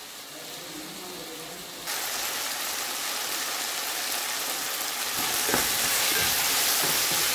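Onions, tomatoes, garlic and green chillies sizzling as they sauté in a stainless steel pot for a curry base, with a spoon stirring and knocking a few times past the middle. About two seconds in, a fainter hiss of oil heating in a pan gives way to the louder sizzle.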